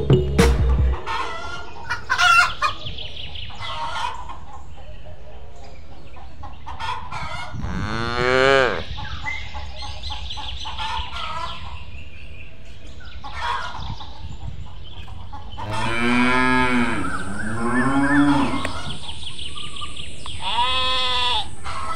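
Cows mooing, four long calls that rise and fall in pitch, with chickens clucking and small birds chirping in between.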